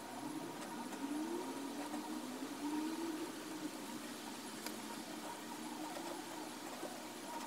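Low steady hum of room tone, with a faint drone that rises in pitch from about one to three seconds in. A few isolated soft clicks from a laptop keyboard.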